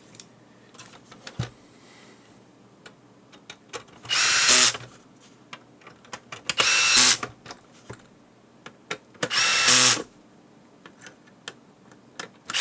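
Small electric screwdriver driving screws, run in three short bursts of under a second each, a couple of seconds apart, with light clicks of handling between them.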